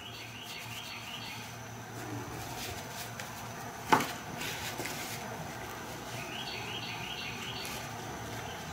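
Hands working a nylon dog collar and rivet, with soft rustling and handling noises and one sharp click about four seconds in. Faint high chirping trills in the background, once at the start and again near the end.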